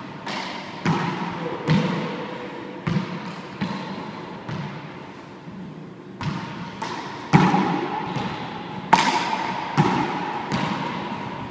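Handball rally: the small rubber ball is struck by gloved hands and bangs off the walls and floor of an enclosed court. There are about a dozen sharp hits at uneven intervals, each echoing.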